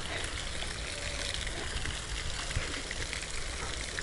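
Fresh water left running, splashing and trickling steadily.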